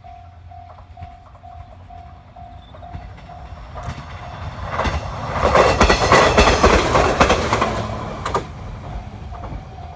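A level crossing alarm dings in a steady, rapid rhythm while a JR 719 series electric train approaches and passes loudly over the crossing, about five seconds in. Its wheels click over the rail joints as it goes by. The alarm is heard faintly again once the train has passed.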